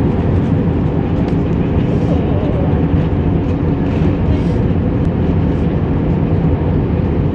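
Steady low cabin noise of an Airbus A321 in cruise flight: jet engine and airflow noise heard from a window seat over the wing.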